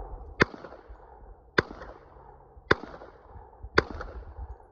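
Hi-Point .45 ACP carbine firing four single shots, evenly about a second apart, each followed by a short echo.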